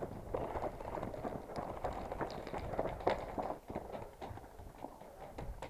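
Footsteps on snow-covered ground, an irregular run of steps, about two a second.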